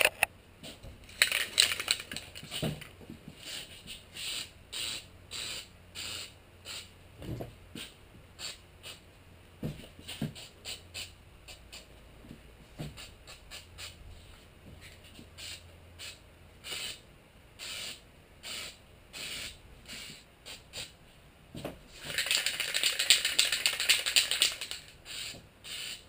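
An aerosol can of Leak Stopper Rubber Flex rubberized coating spraying in many short hissing bursts, a fraction of a second each. Near the end comes one longer spray of about three seconds.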